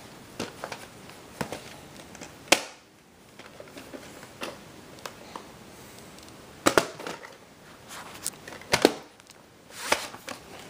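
Handling of a VHS cassette in its cardboard sleeve: scattered clicks, knocks and rubbing of plastic and cardboard as the tape is slid out, with three sharp clicks standing out, spread across the stretch.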